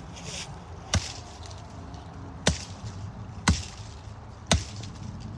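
Machete chopping into a small tree trunk: four sharp blows, roughly a second apart.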